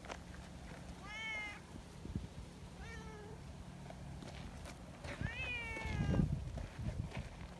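Cats meowing: three short meows about two seconds apart, each rising a little then falling, with a low rumble near the end.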